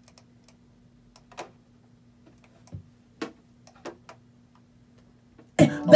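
Sparse clicks of a computer keyboard and mouse over a faint steady hum; about five and a half seconds in, a looped beat starts playing loudly through the studio monitors.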